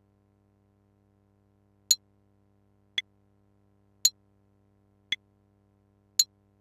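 Metronome count-in: five sharp clicks a little over a second apart, alternating a brighter and a duller click, over a faint low hum.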